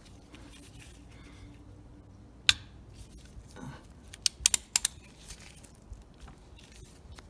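Sharp metal clicks from a hex-bit wrench on the oil drain plug of a BMW R1200RT as the plug is loosened. There is one click a couple of seconds in, then a quick run of about six more a couple of seconds later.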